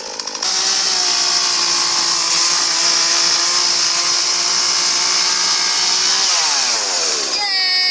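Chainsaw engine running steadily at high revs, with a loud hiss over the engine note. About six seconds in the revs fall away as the throttle is let off.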